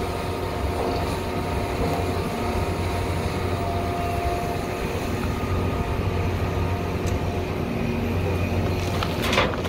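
Heavy diesel engines of a John Deere excavator and a 310E dump truck running steadily while the excavator loads the truck. Near the end, rocks and dirt start clattering into the dump bed.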